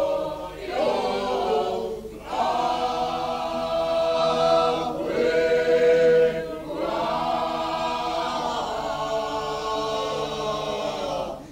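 Several voices singing together a cappella in long, held, chant-like phrases, with short breaks between them; the singing cuts off abruptly at the end.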